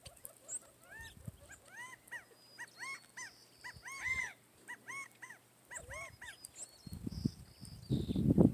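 An animal calling in a run of short, arched yelps, about three a second, for several seconds. Near the end, louder low thumps and rustling close to the microphone.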